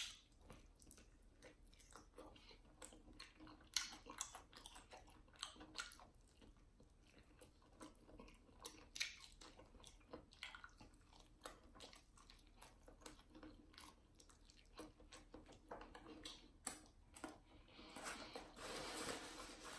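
Quiet, close-miked chewing of a sauced fried chicken wing: scattered soft mouth clicks and smacks, with a few louder bites about 4 and 9 seconds in. A soft rushing noise comes in near the end.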